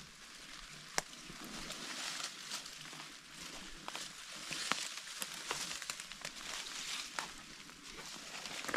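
Footsteps crunching through dry leaf litter and packs and bodies brushing through dense scrub, with a steady crackle and scattered sharp twig snaps.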